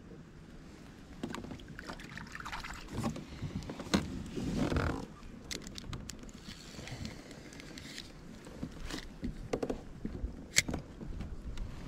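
Handling noise of a spinning rod and reel aboard a plastic kayak: scattered clicks and knocks, with a longer swishing rustle about four seconds in.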